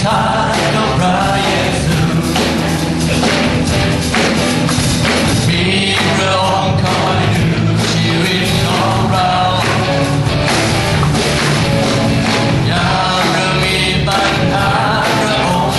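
Live worship song: a singer leads at the microphone over full band accompaniment with a steady beat.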